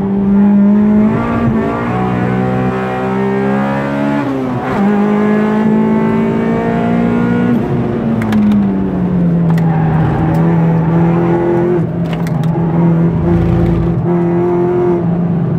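Honda Civic VTEC four-cylinder engine heard from inside the cabin at speed on track. Its note holds mostly steady with a few brief dips, then falls about eight seconds in and settles at a lower, steady pitch as the car eases off.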